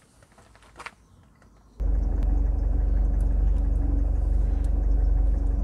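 A car's engine running, heard from inside the cabin as a steady low rumble with a hum, cutting in suddenly about two seconds in after a short quiet stretch with a few faint clicks.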